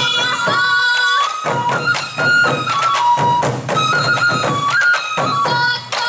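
Sansa odori music: a troupe of sansa taiko drums struck with sticks in unison rhythm, under a high bamboo-flute melody of held, sliding notes. The drumming drops out briefly twice and comes back in.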